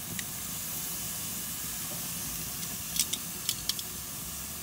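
Marinated raw chicken breasts sizzling on hot grill grates, a steady hiss. Metal tongs click sharply against the grates several times about three seconds in.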